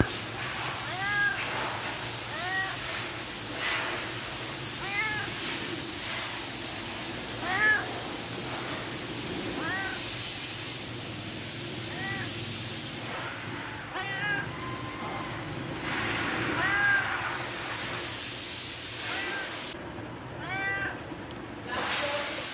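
Orange tabby cat meowing over and over, about a dozen short meows that each rise and fall in pitch, one every second or two: a hungry cat begging for food.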